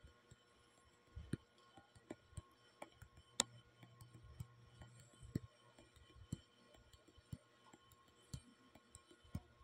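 Near silence: faint room tone with soft clicks about once a second, one sharper click about three and a half seconds in.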